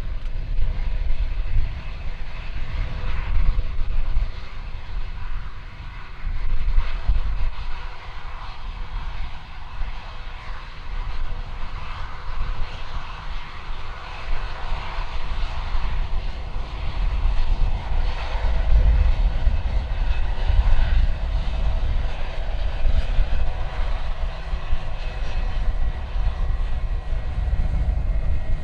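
Jet airliner's engines running: a steady whine over a deep rumble that swells and fades.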